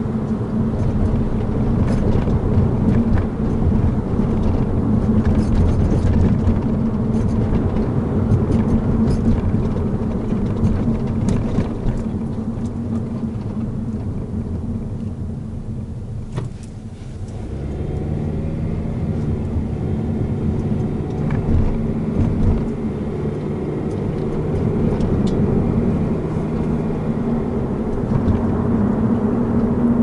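Cabin noise inside a moving Scion tC: steady tyre and road rumble with its four-cylinder engine, easing off about halfway through as the car slows, then a low engine note coming up as it pulls away again. Faint high ticks and squeaks come through here and there, from the windshield's lower edge at the cowl, squeaking since the windshield was replaced, and a lower rattle from the head-restraint camera mount.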